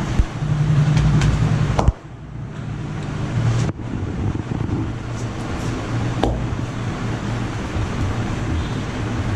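Steady street traffic rumble, with a few sharp knocks over it.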